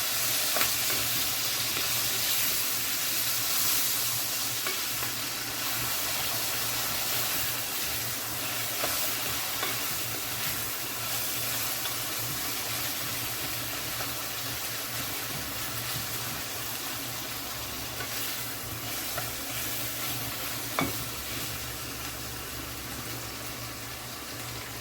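Saltfish and herbs frying in oil in a pot, a steady sizzle with occasional light clicks of stirring.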